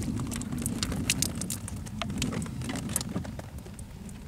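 Wind and water noise on a small open fishing boat at sea, a steady low rumble, with a quick run of light clicks and taps during the first three seconds.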